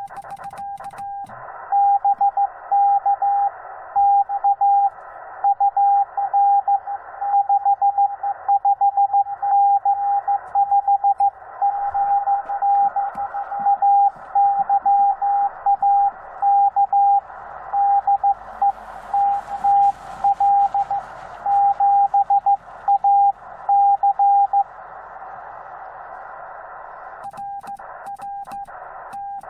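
Morse code from a Yaesu FT-891 transceiver: a single steady beep keyed on and off in dots and dashes over the receiver's hiss, loud for most of the stretch, then stopping about five seconds before the end. A fainter keyed beep returns near the end.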